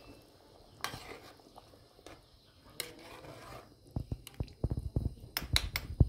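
A metal spoon working in a large aluminium pot of stew, giving a few light clicks and taps, then a busier run of low thumps and sharper clicks in the last two seconds, the loudest right at the end.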